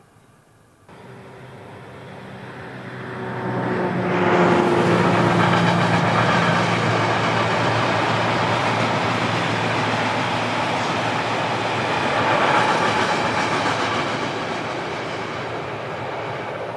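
Train approaching and passing close by. Starting about a second in, its hum builds, with a tone sliding slightly lower, into a loud, steady rolling of wheels on rails with clickety-clack from the wagons, easing slightly near the end.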